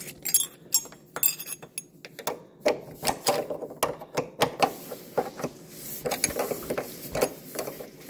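Small open-end wrench clinking on the hex bolt of a refrigerator's front levelling leg as it is worked round to adjust the height: a string of light metallic clicks and taps.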